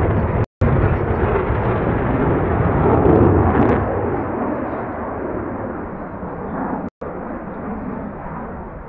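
Jet noise from a Belgian Air Force F-16's Pratt & Whitney F100 turbofan as it flies its display: a deep, steady rushing sound that swells to its loudest about three seconds in, then slowly fades. The sound cuts out briefly twice, about half a second in and near seven seconds.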